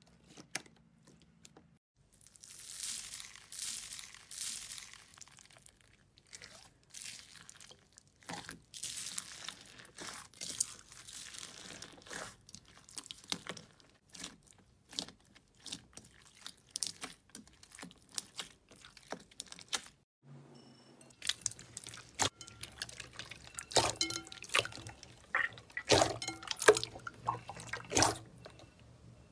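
Hands squeezing and kneading slime: sticky squelches with many sharp clicks and crackles. Partway through, a black slime full of white beads is worked by hand. Near the end, clear slime is pressed in a bowl of water, with wet clicks and pops.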